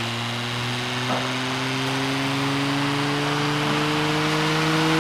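Bedini-Cole ironless rotating magnetic motor spinning up slowly after being connected to its battery. Its hum rises steadily in pitch and grows louder as it gathers speed.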